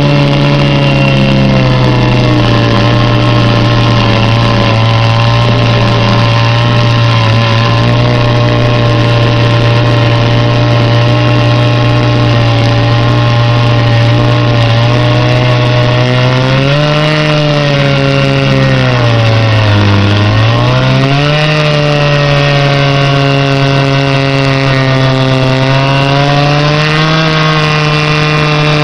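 Two-stroke chainsaw on a chainsaw mill running at high revs under load, ripping a board lengthwise from a log. The engine speed sags for a couple of seconds a little past halfway, then picks back up.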